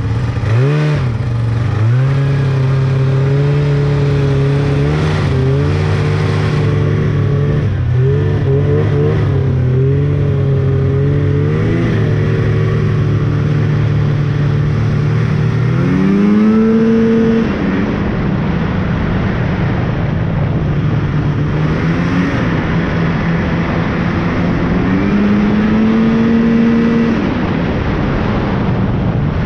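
Snowmobile engine running at a steady cruise, its pitch swinging with the throttle and climbing sharply about sixteen seconds in, then again near the end, before settling back each time.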